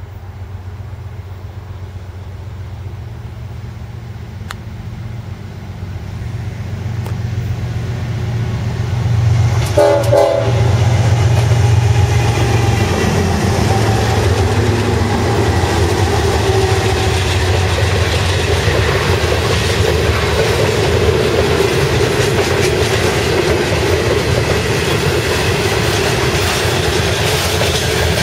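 Norfolk Southern diesel-electric freight locomotive approaching and passing close by. Its engine rumble builds, with a brief horn note about ten seconds in. Then comes the steady rumble and clatter of loaded steel-coil cars rolling past on the rails.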